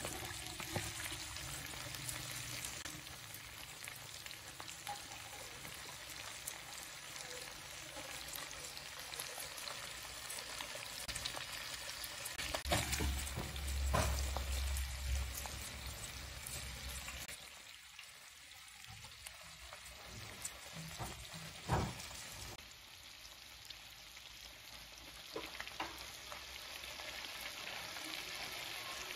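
Beef and tomatoes frying on a black iron tawa, a steady sizzle, with a few sharp knocks and a metal spatula stirring against the griddle near the end.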